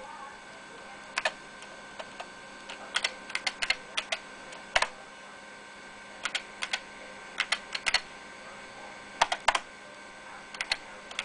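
Typing on an IBM PS/2 P70 portable's keyboard: sharp keystrokes in short irregular runs with pauses between, as text is entered at a BBS prompt in a terminal program.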